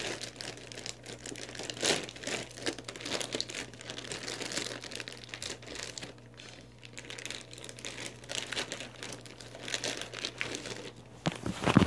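Plastic packaging bag crinkling in irregular crackles as it is handled and opened by hand.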